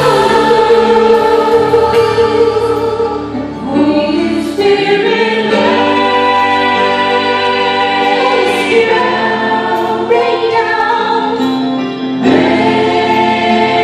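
Live worship music: a woman singing long held notes into a microphone over a band. She breaks between phrases about four seconds in and again near the end.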